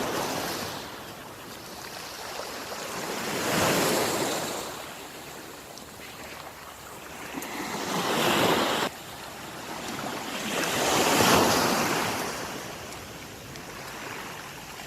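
Sea waves breaking and washing up the shore, four surges that each swell and die away, with some wind on the microphone.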